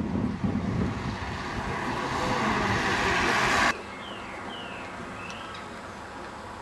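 A small bus pulling away and a car passing close, the engine and tyre noise swelling until it cuts off abruptly a little over halfway through. After that, a quieter background with birds chirping a few times.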